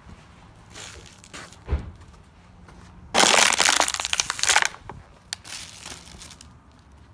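Sneaker crushing an empty plastic water bottle on concrete: a loud, dense crackle lasting about a second and a half, starting about three seconds in. Before it, a footstep lands on crumpled brown paper with a short crunch; near the end, a foot steps on a plastic bag with lighter crinkling.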